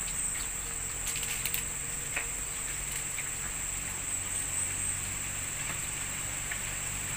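Steady high-pitched drone of forest insects, with a few faint clicks about one to two seconds in.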